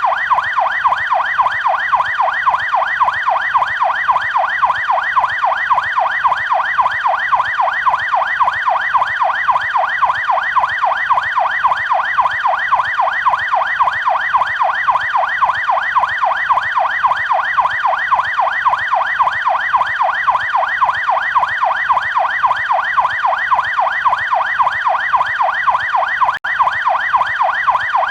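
Canadian police car siren on its yelp setting: a loud, rapid, evenly repeating up-and-down wail, broken by a split-second gap near the end.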